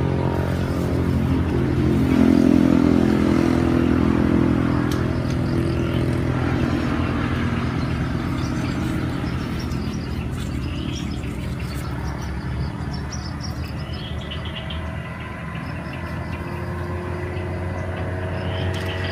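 A motor engine running steadily, louder for a few seconds about two seconds in.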